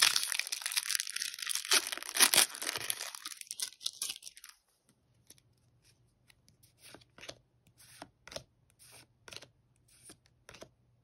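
Foil Pokémon TCG Crown Zenith booster pack wrapper being torn open and crinkled for about four and a half seconds. Then comes a run of short, soft swishes spaced about every half second to a second as the cards are slid one by one through the stack.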